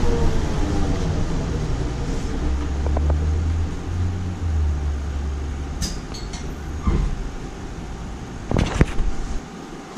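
Cabin noise of a Nova Bus LFSe battery-electric bus slowing down: the TM4 electric traction motor's whine falls in pitch and fades in the first moment, leaving a low steady hum. A few knocks and rattles come near the end.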